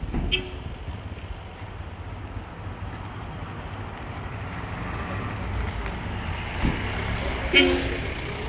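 A road vehicle's engine running close by, slowly growing louder, with a short horn toot about seven and a half seconds in.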